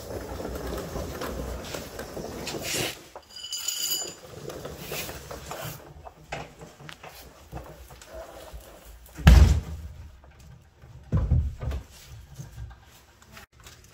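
Handling noise and dull thuds as a stuck fuel tank is worked loose from under a 2004 Chevrolet Cavalier, with a short metallic clink about three and a half seconds in. The loudest thud comes about nine seconds in and another about eleven seconds in.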